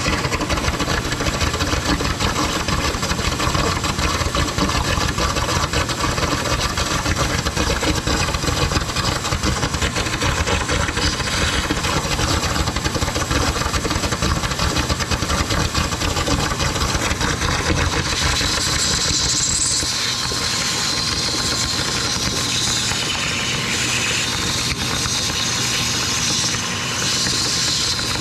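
Vacuum pump running steadily, pulling a vacuum on the engine's crankcase so that the oil stays in while the drain plug is out. About two-thirds of the way through, a higher hiss joins it.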